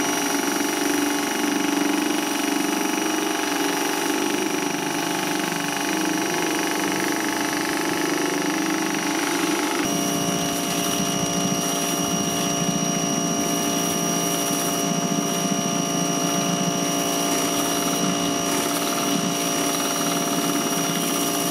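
Parkside PHD 170 C2 2400 W electric pressure washer running steadily under load, with the rotary surface cleaner spraying water onto a deck. The tone shifts abruptly about ten seconds in.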